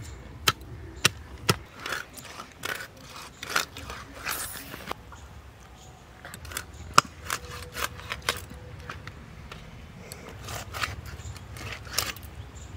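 A large silver carp being cut on a boti blade: irregular sharp clicks and crunches as the blade goes through scales and bone, with a short scrape about four seconds in.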